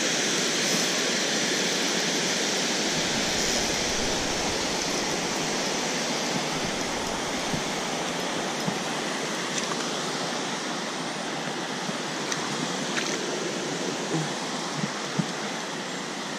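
Steady rushing of water pouring over a dam spillway, easing slightly toward the end, with a few faint clicks.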